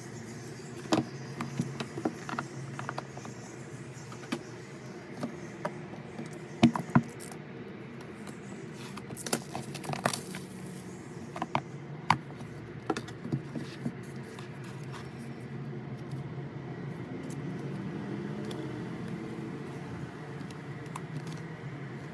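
Album packaging and its contents being handled: scattered clicks, taps and light scrapes, mostly in the first fourteen seconds or so, then only a few, over steady low background noise.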